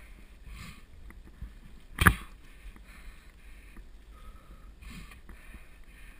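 Mountain bike rolling fast along a leaf-covered dirt singletrack: steady tyre and rattle noise, with one sharp loud knock about two seconds in.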